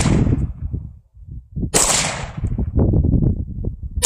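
AR-15 rifle firing single shots about two seconds apart: a sharp crack about two seconds in and another at the very end, with the tail of the previous shot ringing out at the start. A low, uneven rumble fills the gaps between shots.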